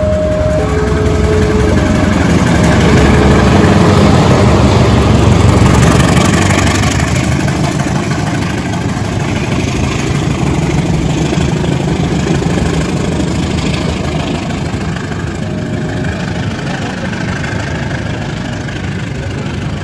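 CC 201 diesel-electric locomotive's GE V8 diesel engine working hard as it pulls through. It gets loudest about four to six seconds in, then eases as it moves away. A two-tone signal alternates high and low at the start.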